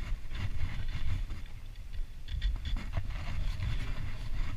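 Wind rumbling on the microphone, with scattered light scrapes and rubbing from handling the rod and reel.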